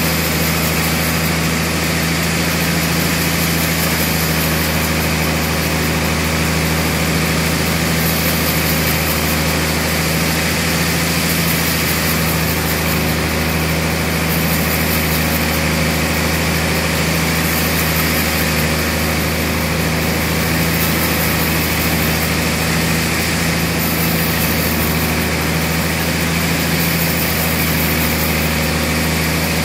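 Large vertical band sawmill running under load as it cuts lengthwise through a big dried tamarind log: a steady low machine hum with the even hiss of the blade in the wood.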